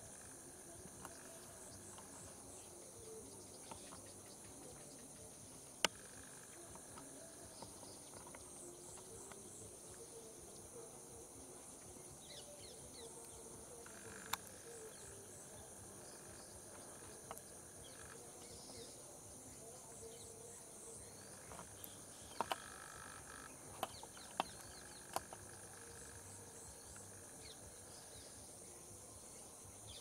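Faint forest ambience: a steady high-pitched insect drone with scattered bird chirps, broken by a handful of sharp clicks or snaps, most of them in a cluster about two-thirds of the way through.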